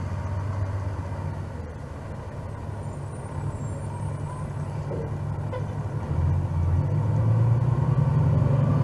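A 2003 Pierce Quint ladder fire truck's Cummins ISM 10.8 L six-cylinder diesel running, a steady low rumble that grows louder over the last few seconds.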